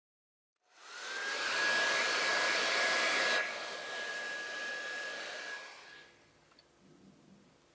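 Hand-held hair dryer switched on about a second in, running with a steady hiss and a thin high motor whine, dropping in level after about three seconds and winding down near the end. It is blowing warm air on a stainless steel mousse ring to loosen the chilled mousse for unmolding.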